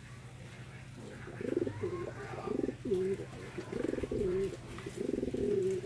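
Pigeon cooing: a run of low, bubbling coos that starts about a second and a half in and repeats several times.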